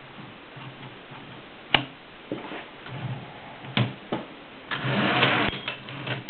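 Mercedes 6 manual typewriter being worked: a few separate sharp mechanical clacks, then about a second of dense rattling clatter near the end.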